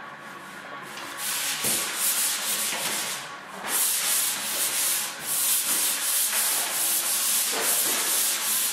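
Drywall pole sander with fine 120-grit sandpaper rasping back and forth over dried joint compound on the flat seams, in repeated strokes: the finish sanding of taped drywall. It starts about a second in and pauses briefly near the middle.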